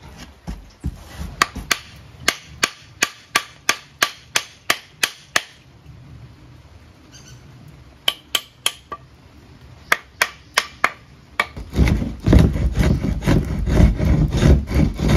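A small hammer tapping a wooden hand plane about three times a second, in two runs, to set the plane's blade. From about twelve seconds in, a loud rough scraping as the wooden door edge is worked.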